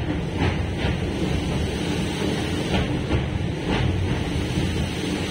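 Passenger train running over a steel truss bridge: a steady, dense rumble of wheels on rails, with a few short clicks scattered through it.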